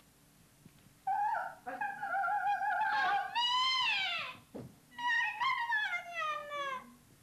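A high-pitched voice holding long, wavering notes. One phrase rises and then slides down about four seconds in, and another falls away near the end.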